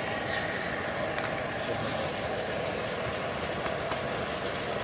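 Camp stove burner running steadily under a cast-iron skillet. A sizzle starts right at the beginning as marinated chicken and its liquid are poured from a plastic zip bag into the hot pan, with the bag crinkling.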